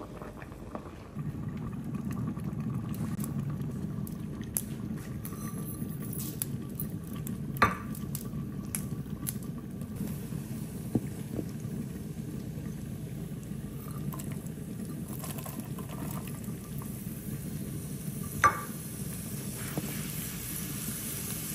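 A pot of dal boiling steadily, bubbling, with scattered sharp metal clinks against the steel pot; two louder clinks ring briefly, about a third of the way in and near the end.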